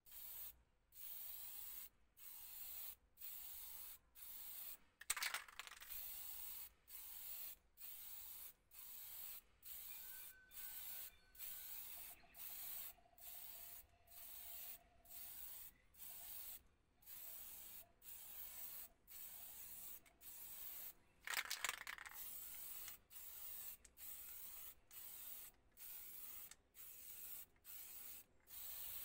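Aerosol spray can spraying primer in short hissing bursts, about one a second, with brief gaps between. Two bursts, about 5 seconds in and near 22 seconds, are louder and fuller.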